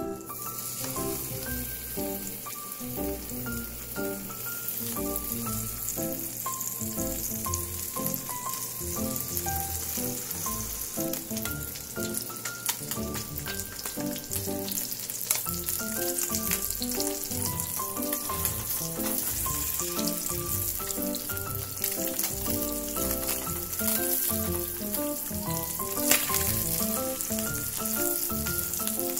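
Slices of luncheon meat sizzling steadily in hot oil in a frying pan, with occasional light clicks as tongs turn them. A light background melody plays over it.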